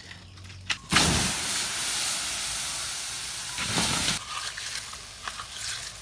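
A loud, steam-like hiss that starts suddenly about a second in and fades over about three seconds, surging once more near four seconds, followed by light crackling.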